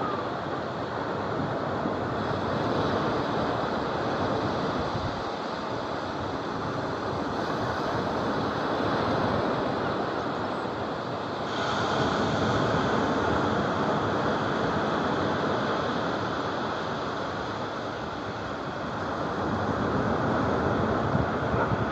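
Small waves breaking and washing up a sandy shore: a steady rushing that swells and eases, growing louder about halfway through and again near the end.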